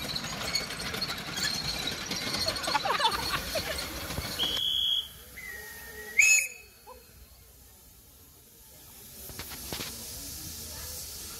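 Narrow-gauge steam locomotive letting off steam in a steady loud hiss that breaks off suddenly after about four and a half seconds. Short high whistle tones follow, with a brief loud blast about six seconds in, then a quieter hiss.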